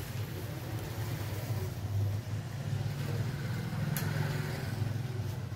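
Steady low electrical hum from bench equipment, with a light click of test leads and crocodile clips being handled about four seconds in.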